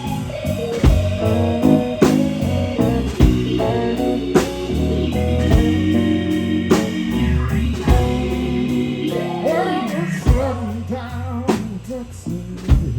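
Live blues band playing a slow blues on electric guitar, bass and drums, with steady drum hits and held guitar notes. About nine seconds in, a lead line bends and wavers in pitch.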